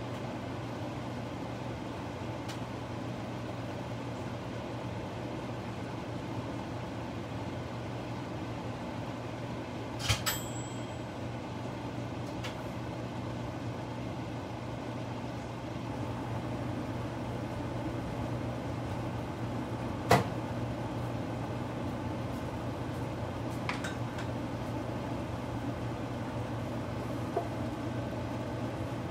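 Pot of beef and onions in gyudon sauce simmering on a cooktop: a steady low hum and hiss, broken by a few sharp clicks, the loudest about twenty seconds in.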